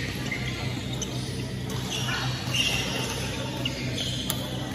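Badminton rally: several short shoe squeaks on the wooden court floor, then a sharp racket strike on the shuttlecock near the end, over a steady low hum in the hall.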